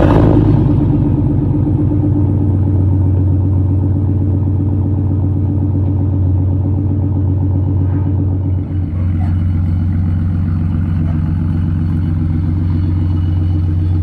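Pickup truck engine with an aftermarket Flowmaster exhaust catching on start-up: the revs flare briefly, then it settles into a steady, loud idle with a deep exhaust drone.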